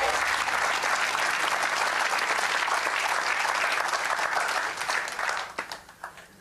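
Studio audience applauding steadily, the clapping thinning out and stopping about five and a half seconds in.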